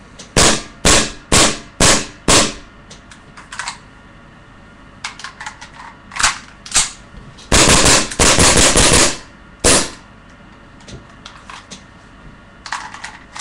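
CZ75 gas blowback airsoft pistol firing: five sharp shots about half a second apart, then a few scattered clicks and two more shots. Past the middle comes a loud continuous rush of noise lasting about a second and a half, followed by one last shot.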